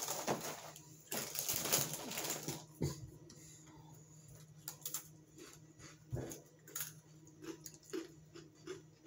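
Rustling of a cracker box and its plastic liner as crackers are tipped out, then scattered crisp crunches of dry crackers being bitten and chewed, over a faint steady low hum.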